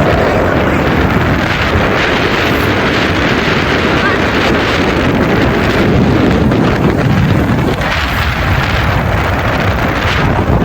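Loud, steady wind buffeting the microphone while on the move, with a vehicle's running noise underneath.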